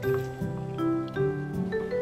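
Background music: a light melody of struck, ringing notes over a low bass line.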